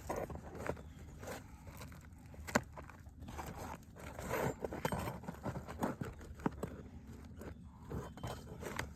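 Nails being pried out of brittle asphalt roof shingles: irregular scraping and sharp clicks of metal on nail heads and shingle, with crackling of the stiff shingle, a sharp click about two and a half seconds in and another about six and a half seconds in.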